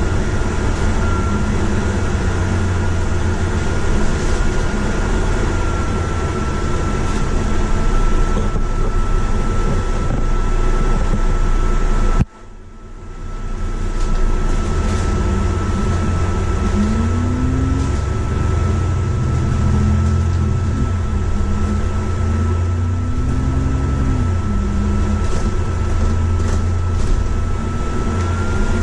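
Bus engine and road noise heard from inside the moving bus, with a thin steady high whine throughout. The sound drops away suddenly about twelve seconds in and swells back over a couple of seconds; later the engine's pitch rises twice as the bus pulls away and picks up speed.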